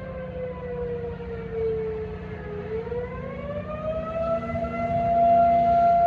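Outdoor warning siren sounding in a test, its tone sliding down for about two and a half seconds, then rising again and holding steady while it grows louder near the end.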